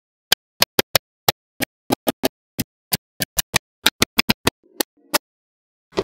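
Magnetic balls clicking together one after another: about twenty sharp clicks at an uneven pace, with dead silence between them.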